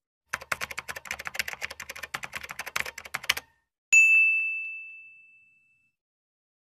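Typewriter sound effect: rapid key clacks for about three seconds, then a single bell ding that rings out and fades.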